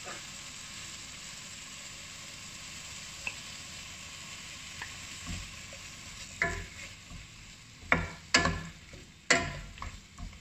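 Sliced arrowhead tubers and vegetables sizzling steadily in a wok while a wooden spatula stirs them. From about six seconds in, four sharp knocks of the spatula against the pan stand out above the sizzle.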